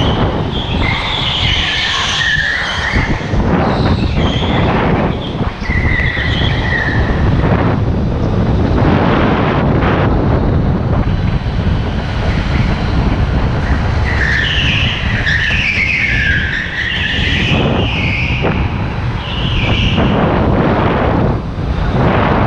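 Rental go-kart at race speed heard from on board: a steady rumble of motor, chassis and tyres on the track, with tyres squealing through the corners, most at about one to three seconds in, near six seconds, and from about fourteen to twenty seconds.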